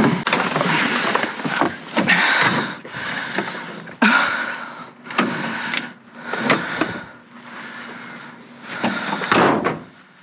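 Repeated scraping, rustling and bumping of objects being handled and shifted, in irregular bursts about half a second to a second long, over a faint steady hum.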